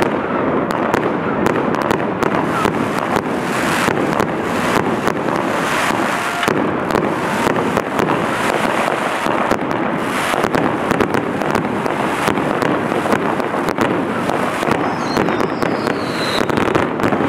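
Fireworks crackling and popping continuously, a dense run of rapid sharp cracks over a steady rushing noise.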